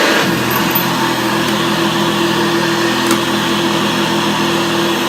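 1975 Hoover Senior Ranger U4002 upright vacuum cleaner running steadily, its motor humming with a steady tone and its beater bar audible. There is a single light click about three seconds in.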